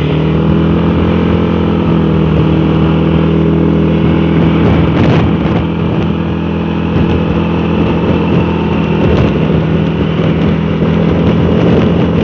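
Dafra Laser 150 scooter's single-cylinder four-stroke engine running under way, its pitch rising slightly in the first second as it picks up speed, then holding steady at cruising speed.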